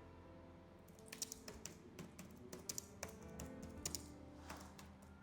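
Faint typing on a computer keyboard: irregular key clicks, a few a second, over soft background music.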